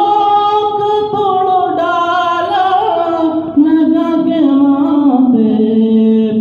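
A man reciting an Urdu naat, a devotional song in praise of the Prophet, sung solo with no instruments in long held notes that slide from one pitch to the next.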